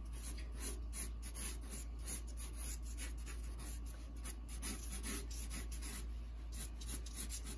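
Sharpie marker scratching across a large sheet of drawing paper in many quick, short sketching strokes.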